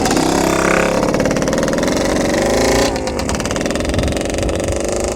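Dirt bike engine running close by, its pitch wavering, with a dip in engine speed about three seconds in.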